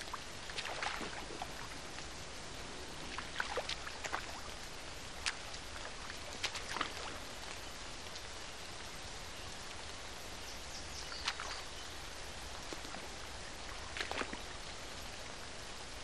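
Steady rain hiss, with short sharp clicks and rustles scattered through it about a dozen times.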